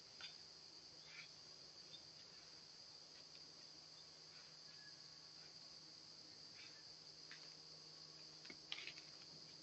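Steady, high-pitched chorus of insects such as crickets, with a few brief, faint rustles from the white-tailed deer moving in the leaf litter, the loudest near the end.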